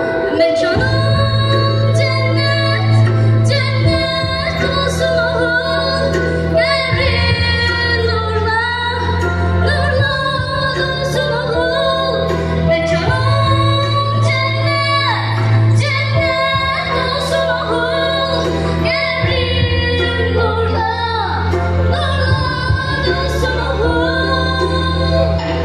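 A girl singing into a microphone over backing music with a steady bass and long held chords.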